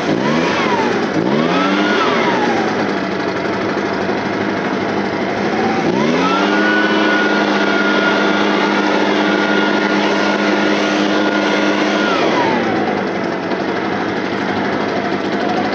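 Echo PB-580T backpack leaf blower's two-stroke engine and fan blowing. Two quick blips of the throttle come near the start, then it idles. About six seconds in it revs up and holds full throttle for around six seconds, then drops back to idle.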